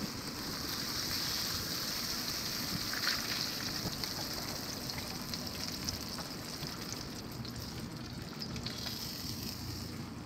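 Breaded white trout fillets frying in hot oil in a cast-iron skillet: a steady sizzle with fine crackling.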